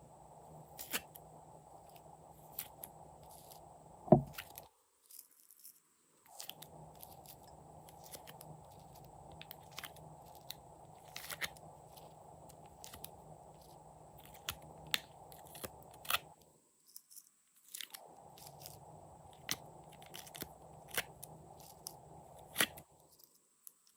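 Hands squeezing and working glossy slime: irregular sticky clicks, crackles and air pops, the loudest pop about four seconds in.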